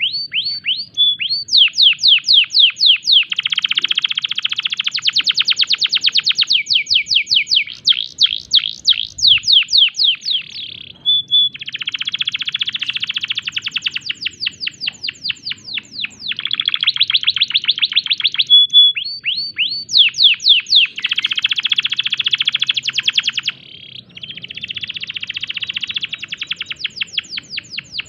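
Domestic canary singing a loud, continuous song: fast trills of steeply falling notes alternating with dense buzzing rolls and short clear whistles, with brief pauses between phrases. It is the heavy, nonstop song of a canary in breeding condition.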